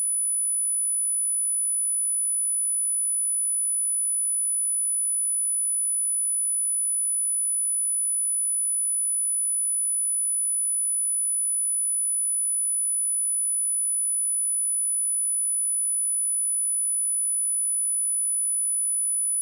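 A pure 9955 Hz sine-wave test tone, one steady high-pitched whistle held at an even level, meant for testing speakers and headphones and for shaking water and dust out of a speaker.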